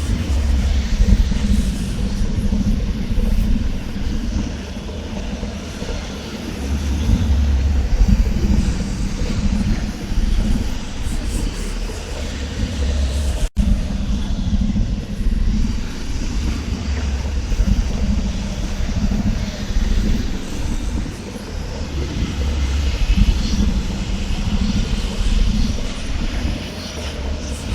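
Hellish ambience sound effect: a deep, steady rumble that swells and ebbs, cutting out for an instant about halfway through before carrying on.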